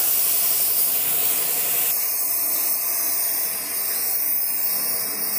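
Gravity-feed paint spray gun hissing steadily with compressed air as it sprays paint onto a car bumper.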